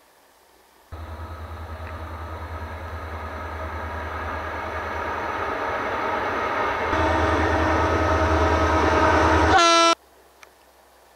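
Diesel locomotive running with its horn blowing over a pulsing engine rumble, growing steadily louder. The sound starts and cuts off abruptly.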